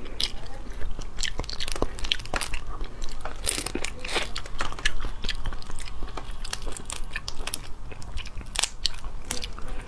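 Close-miked eating sounds: cooked prawn shells crackling and snapping as they are peeled by hand, mixed with lip and mouth sounds of sucking and chewing the tender prawn meat. The clicks come irregularly, some sharp and sudden.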